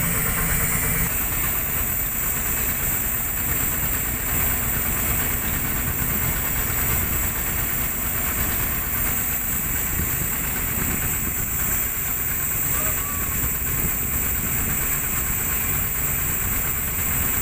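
Hydraulic excavator's diesel engine running steadily.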